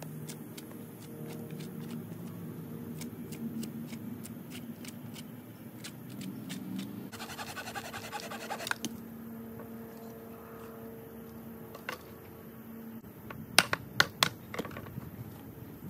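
Hand tools working a piece of water oak on a wooden sawhorse: scraping and light ticks as the punky outer wood is cleared, then four sharp knocks in quick succession near the end.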